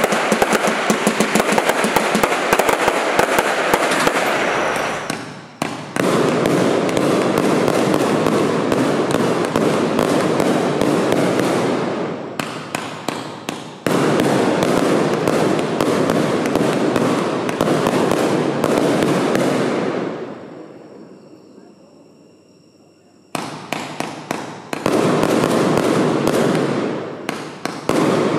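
A 216-shot fan-fire consumer fireworks compound cake (the Signature Show) firing volley after volley of shots in rapid succession, with a crackling barrage. The firing thins out briefly about five and twelve seconds in, dies away about twenty seconds in, and starts again with a new volley about three seconds later.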